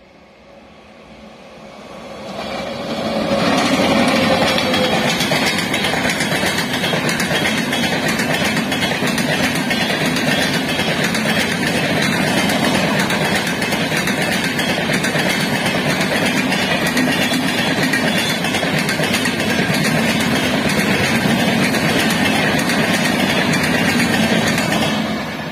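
Express passenger train hauled by a WAP-7 electric locomotive passing close at speed: the rush and clatter of coach wheels on the rails. It builds about two to three seconds in, holds steady, and drops away just at the end.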